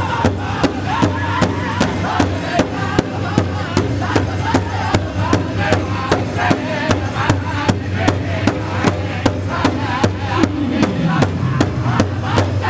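Powwow drum group singing together over a large powwow drum struck in steady unison beats, about three a second. The voices slide down in pitch about ten seconds in.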